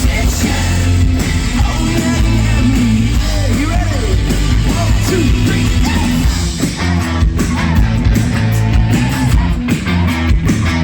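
A rock band playing live, with electric guitar, bass and drums and a voice singing over them.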